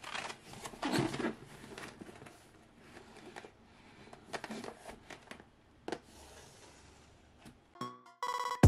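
Cardboard model box handled by hand: rustling, scraping and light knocks as it is set down on a cutting mat and held up, loudest about a second in. Near the end a short intro music sting starts.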